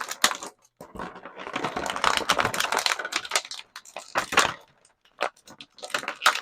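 Sticky tape being peeled off a plastic packaging tray, with crackling of the plastic and a run of sharp clicks and rustles.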